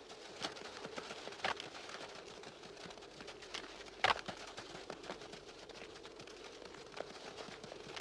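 Two male sand gazelles fighting: a few faint, sharp knocks of their horns clashing, the loudest about four seconds in.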